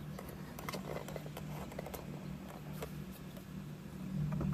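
Faint, scattered clicks of a screw being driven into the plastic dashboard trim by hand and the trim being handled, over a steady low hum.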